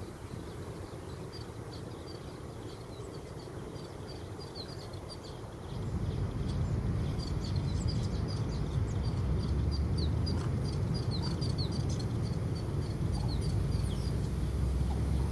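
Small birds chirping in quick, repeated short notes, over a low rumble that gets louder about six seconds in.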